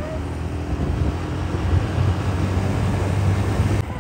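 Motorcycle engine running steadily at cruising speed with wind and road noise, growing a little louder partway through and breaking off abruptly just before the end.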